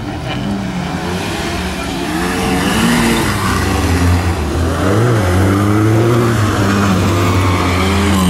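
Peugeot autocross car's engine revving hard, its pitch repeatedly climbing and dropping as the car accelerates and slides through the turns on the dirt track, growing louder over the first few seconds.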